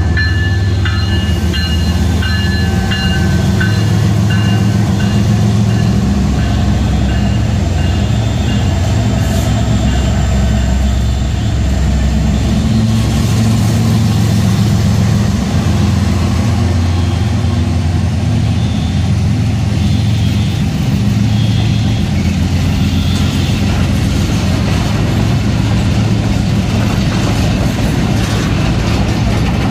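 Freight train passing close by: diesel locomotives running as they go past, then freight cars rolling along the track. The sound is loud and steady, with a deep engine rumble throughout.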